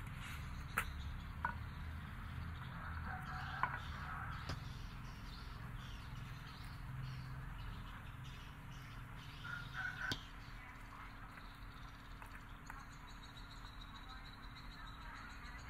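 A small knife slicing fresh vegetables by hand, with a few sharp clicks as the blade taps the bowl or pan, over a steady low background rumble.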